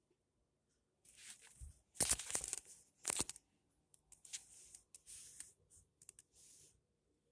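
Irregular rustling and scratching noises in a small room, a series of short scrapes with the two loudest about two and three seconds in.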